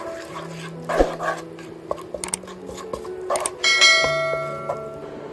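Subscribe-button animation sound effect: a short burst about a second in, then a few sharp mouse clicks and a bell ding that rings out and fades, over light background music.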